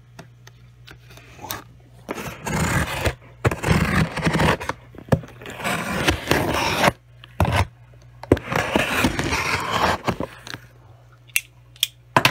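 Packing tape being cut and pulled off a cardboard shipping box, in several noisy strokes starting about two seconds in.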